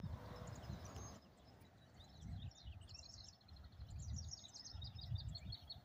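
Small birds chirping, with a quick run of repeated high chirps in the second half. Wind buffets the microphone in irregular low gusts.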